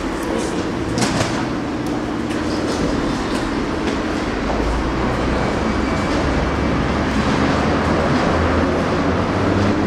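Berlin city rail train running on the track: a steady rumble with a few sharp clicks in the first second or so.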